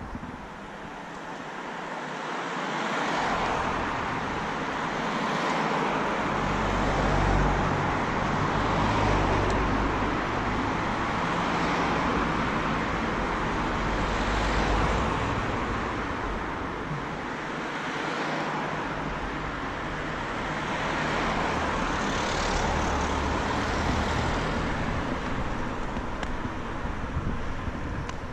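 Road traffic: several cars passing one after another, each one's tyre and engine noise swelling and fading.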